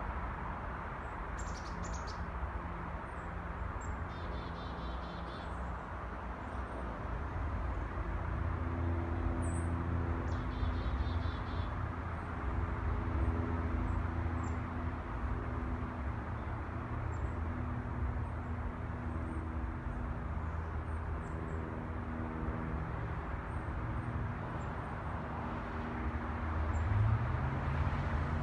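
Outdoor city ambience: a steady distant traffic rumble with a low engine hum, and an engine note rising near the end as a vehicle speeds up. Birds chirp now and then, with a couple of short trills.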